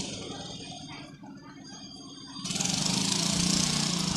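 A steady machine-like running noise, a hiss with a low hum beneath it, starts suddenly about two and a half seconds in.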